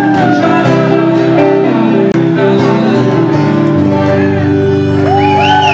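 Live rock band playing: strummed acoustic and electric guitars, with a harmonica joining with bending notes near the end.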